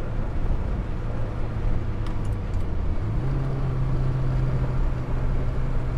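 Lotus Elan's four-cylinder engine running at a steady cruise, heard from inside the cabin with road noise. Its note steps up slightly in pitch about halfway through.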